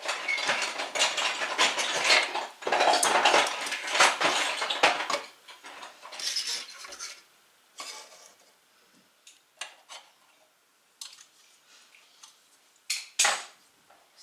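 Small hard plastic toy animal figures clattering as they are handled and set out: a dense rattle for about five seconds, then a few separate clicks and taps as single figures are put down on a wooden shelf.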